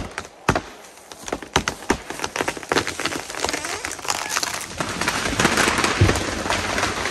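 A large felled tree tipping over: the uncut wood holding it at the saw cut cracks and pops in sharp snaps that come faster and closer together, growing into a dense crackle and rush of breaking wood and branches as it falls, with a low thud near the end.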